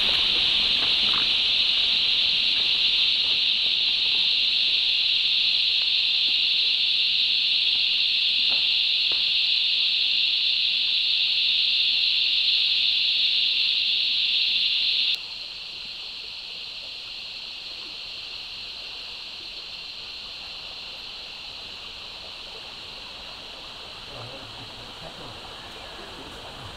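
Cicadas droning in a steady, high-pitched chorus; about halfway through the drone drops abruptly to a quieter level and carries on.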